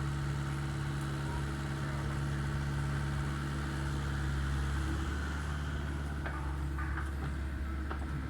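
Mini excavator's diesel engine running at a steady note.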